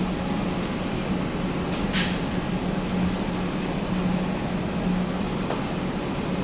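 Metro train standing with its doors open, its on-board equipment humming steadily with a low drone, and a short hiss about two seconds in.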